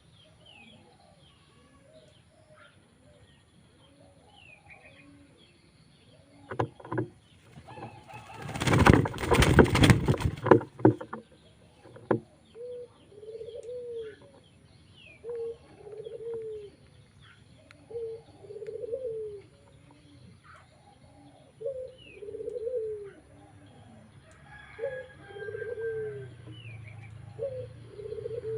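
Pigeon cooing, a run of low coos repeated every couple of seconds through the second half. Before the cooing, a loud rustling burst lasts about three seconds, and faint short chirps of small birds sound throughout.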